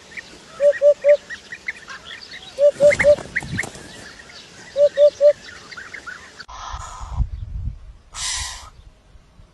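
Birds calling: a low call of three short notes, repeated three times about two seconds apart, over a busy chorus of small high chirps. Two short bursts of noise come near the end.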